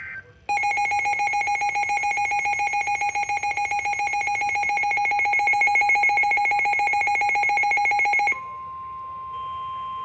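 Midland weather radio's built-in alert alarm sounding a loud, rapidly pulsing electronic beep for about eight seconds, signalling that a severe thunderstorm warning has been received. It cuts off sharply and the steady single-pitch NOAA Weather Radio warning alarm tone carries on from the radio's speaker.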